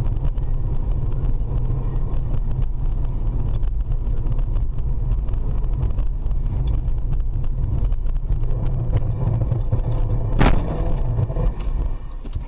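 Car driving, a steady loud low rumble of engine and road noise, with one sharp knock about ten and a half seconds in.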